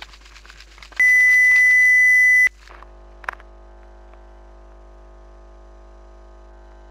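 Rapid toothbrush scrubbing strokes on teeth, with a loud steady electronic beep starting about a second in. The brushing and the beep cut off together about a second and a half later. A single click follows, then a faint steady hum.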